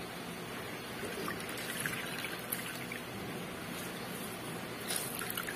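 Water trickling and splashing into a stainless steel basin as a wet washcloth is dipped and wrung out, in two short spells: one about a second in and another near the end.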